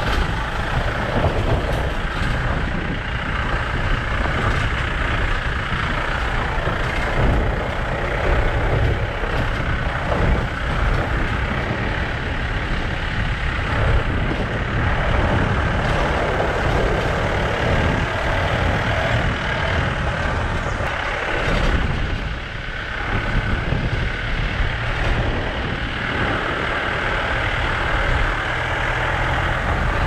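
A vehicle on the move: a steady, loud rumble with road and running noise, briefly quieter about two-thirds of the way through.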